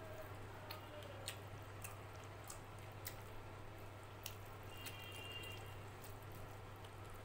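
Fingers mixing rice with dal on a steel plate: faint, wet squishing with small scattered clicks, over a steady low hum.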